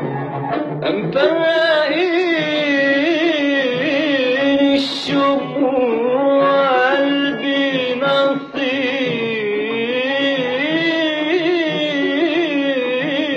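Instrumental passage of a 1950s Egyptian film song: an orchestra with strings carrying a wavering melody in unison, with a brief shimmer of percussion about five seconds in.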